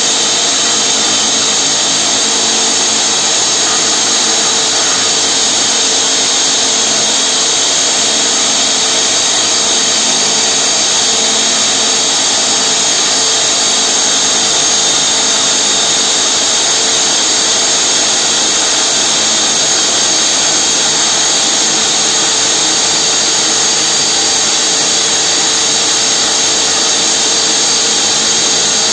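Hydraulic rock drill on a rock-bolting rig's boom drilling a bolt hole into tunnel rock with water flushing: a loud, steady mechanical noise that does not let up.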